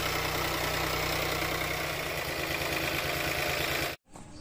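Swaraj 855 FE tractor's three-cylinder diesel engine idling steadily, then cutting off suddenly near the end.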